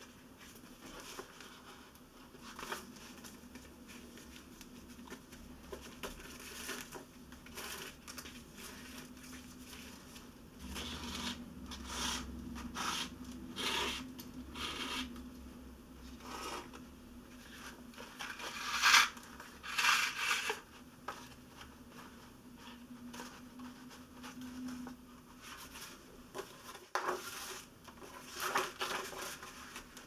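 Hand-sewing a long-stitch book binding: thread drawn through the sewing holes of folded paper signatures and the cover in short swishes, with paper rustling as the pages and cover are handled. The loudest pulls come about two-thirds of the way through, over a faint steady low hum.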